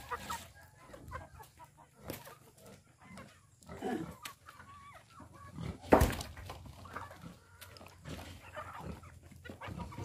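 A flock of native chickens clucking around their feeder as they are fed, with one sharp knock about six seconds in.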